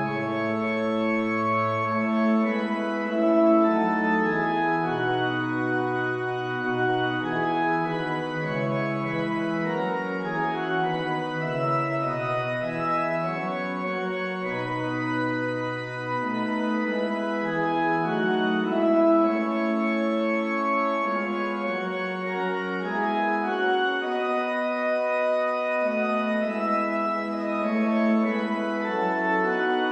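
Organ music: slow held chords over a bass line that moves from note to note.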